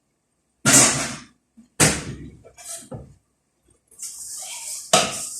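A few sharp knocks and clatters of objects being handled in a kitchen, four in all, the first the loudest, followed by a steady hiss through the last second and a half.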